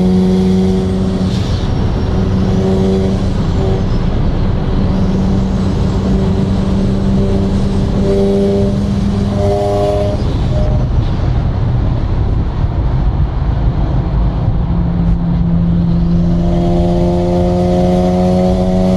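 Mazda RX-7's streetported, single-turbo 13B-REW twin-rotor engine running at a steady speed with an even, unchanging engine tone. For a few seconds past the middle the tone gives way to rougher road and wind noise, then the steady tone returns.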